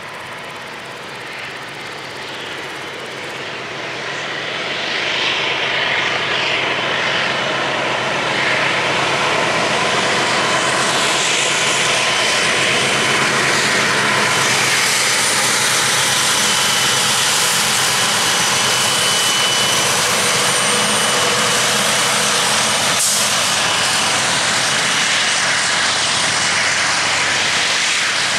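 MLW diesel-electric locomotives, ALCO 251 engines, hauling a freight train past. The engine drone grows louder over the first few seconds as the train approaches, then holds steady as the locomotives and wagons roll by, with thin high tones coming and going above it and a single knock late on.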